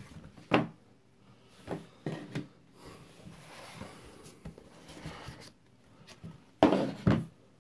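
A cardboard phone box being handled and its lid worked off: a few light knocks, then a soft rubbing as the snug lid slides up off the base. Two louder knocks come near the end.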